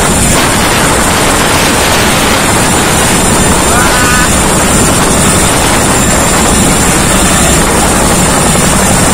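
Boeing CH-47 Chinook tandem-rotor helicopter lifting off at close range: loud, steady rotor and engine noise with a constant high whine, and rotor wash buffeting the microphone.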